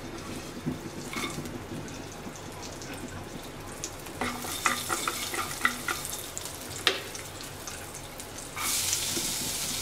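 Garlic cloves frying in mustard oil in a karahi, a soft, steady sizzle with scattered small pops. The sizzle grows louder and fuller near the end.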